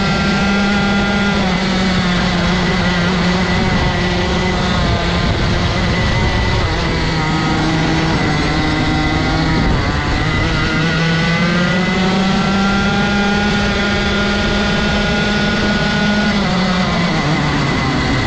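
Rotax 125 cc single-cylinder two-stroke kart engine running hard. Its pitch falls about two seconds in as the revs drop, stays lower for several seconds, climbs again from about ten seconds in, holds high, then falls near the end.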